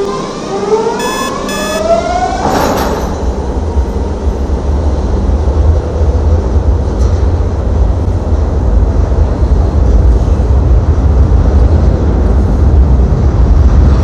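Milan M3 metro train's traction motors whining in several rising tones as it accelerates away, until the whine cuts off with a click about two and a half seconds in as the train's line power switches open. The train then coasts on inertia with its motors unpowered, leaving a steady low rumble.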